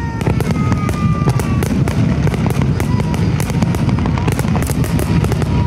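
Rapid barrage of aerial firework shells bursting: a continuous rumble of overlapping booms with sharp crackles throughout, and a few thin whistling tones above.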